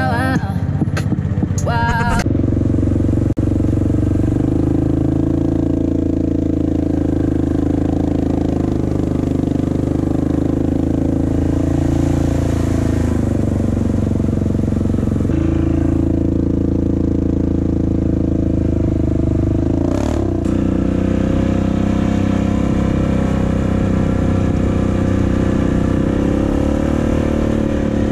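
Background music with singing for about two seconds, then an ATV engine running steadily under way, its pitch dropping and rising a couple of times with the throttle.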